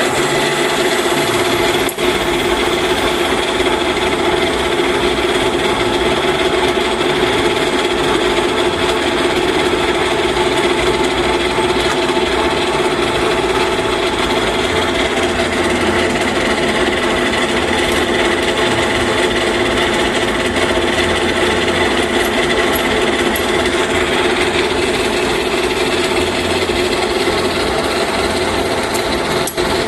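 Freshly overhauled 16K20 screw-cutting lathe running under power, its headstock gearing giving a steady mechanical whine over a low hum.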